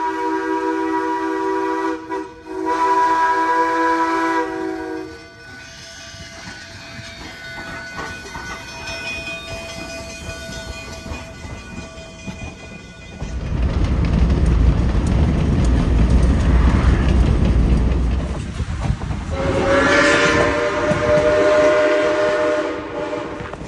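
A narrow-gauge train's whistle sounds a chord of several notes twice, first for about five seconds and then for about four seconds near the end. Between the two blasts comes a loud, low rumble of the train running on the rails.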